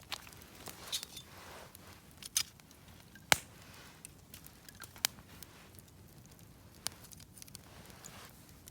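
Wood campfire crackling: a handful of sharp, separate pops over a low hiss, the loudest about three seconds in.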